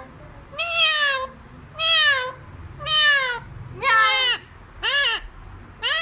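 A pet green parakeet giving a run of six drawn-out calls, about one a second, each rising briefly and then sliding down in pitch.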